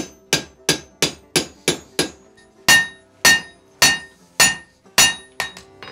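Blacksmith's hand hammer striking a red-hot gun-barrel tomahawk head on an anvil, each blow ringing. First comes a run of quick, lighter blows about three a second, then heavier blows about every half-second.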